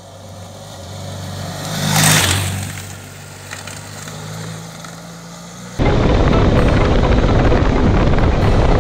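Motor vehicle engine running steadily, with a loud rush about two seconds in as a vehicle passes close by. Loud music cuts in abruptly at about six seconds.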